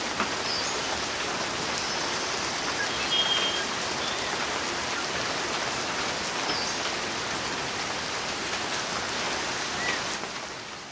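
Steady rain falling, an even hiss of drops, with a few brief bird chirps; it fades down near the end.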